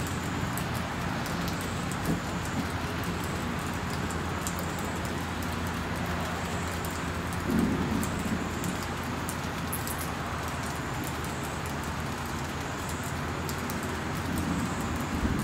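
Steady rushing ambience of wind and sea on a cruise ship's open deck, over a low steady hum. The rush swells briefly about seven and a half seconds in.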